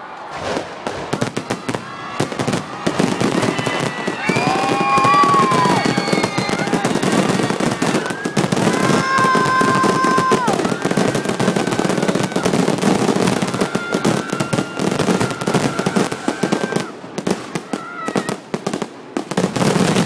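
Aerial fireworks going off in quick succession: a dense, loud crackling packed with bangs and pops. A few long held shouts from onlookers ring out over it a few seconds in and again around the middle.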